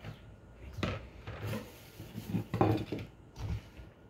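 Kitchen dishes and utensils being handled: a handful of separate clinks and knocks of a plate, bowl or cutlery set down and moved on a counter.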